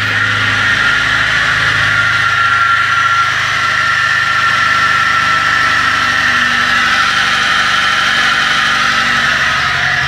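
1998 Fiat Palio's Fiasa four-cylinder engine idling with a very loud, steady high-pitched whine over a rough hiss from the belt-driven accessories. It is a bearing noise that the mechanic is tracing to either the water pump or the alternator.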